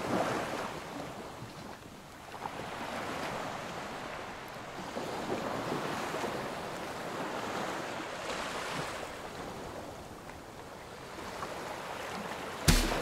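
Small waves washing onto a sandy shore, the surf noise swelling and easing every few seconds. Music with a heavy bass beat cuts in near the end.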